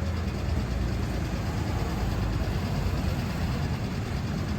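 Steady low rumble of vehicle engines in street traffic, with no sharp events standing out.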